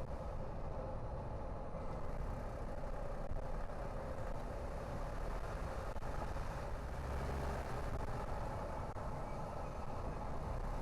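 A car driving at steady speed: a constant low rumble of engine and tyre road noise that holds even throughout.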